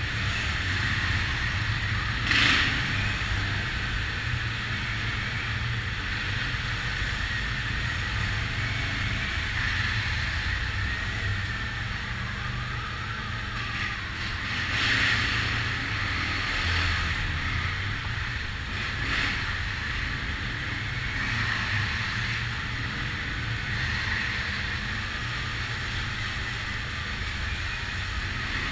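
ATV engine running steadily under way, a low drone with a steady higher whine, along with tyre and trail noise. A few brief louder rushes come about 2 seconds in and twice in the second half, fitting wheels going through puddles or bumps.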